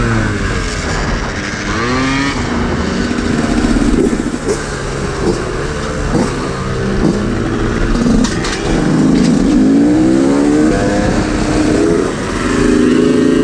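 Small two-stroke moped engine under way, its pitch repeatedly rising and falling as the throttle is opened and closed, over steady rushing noise.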